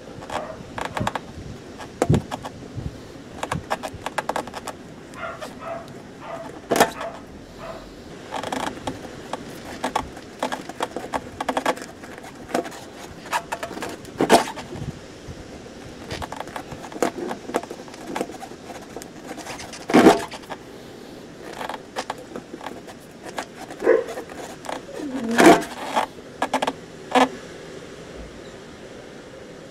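A screwdriver backing a screw out of a flat tubeless car tyre's tread: irregular scrapes and clicks of the tool and screw working in the rubber, with a few sharper knocks.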